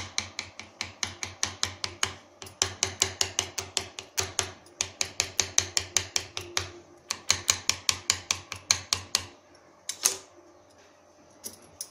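Knife tip pricking rolled mathri dough and tapping the hard countertop beneath, quick sharp taps about five a second in runs with short pauses. It is docking the dough so it won't puff up in frying. The tapping stops near the end, with one last knock.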